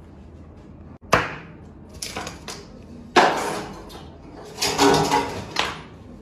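Wet blanched leafy greens slapped down and handled on a plastic cutting board: a sharp slap about a second in, then a run of further slaps and rustles, the loudest about three seconds in.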